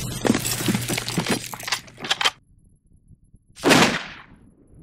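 Sound effects for an animated logo ending: about two seconds of dense crackling and shattering noise over a low hum, a short lull, then one sharp hit that fades out.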